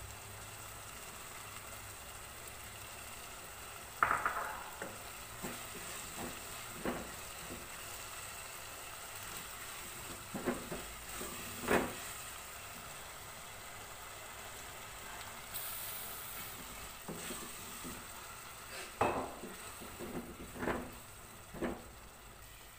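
Tomato-onion mixture sizzling steadily in a pan while a wooden spatula stirs it, scraping and knocking against the pan now and then.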